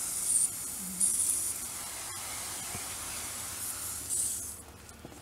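Garden hose spraying water onto a foal's legs: a steady hiss with louder spurts, easing off near the end.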